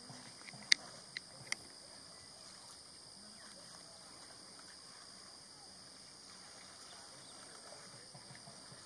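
Outdoor ambience: a steady high-pitched hum throughout, with three sharp clicks within the first two seconds, the first the loudest.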